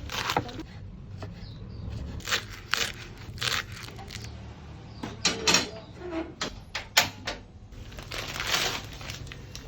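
Irregular knocks, clicks and clinks of kitchen work, with a longer scraping or rustling stretch near the end, over a steady low hum.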